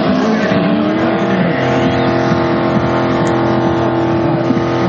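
Drag car's engine held at high revs during a burnout, rear tyres spinning in smoke. The revs climb over about the first second, then are held steady.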